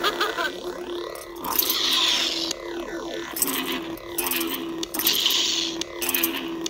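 Lightsaber hilt's Nano Biscotti v4 sound board playing a steady blade hum through its small speaker, with swing sounds that rise and fall in pitch as the hilt is waved, and a couple of brighter hissing surges.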